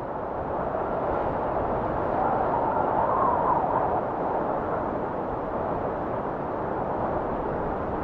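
Waterfall roaring: a steady, even rush of falling water.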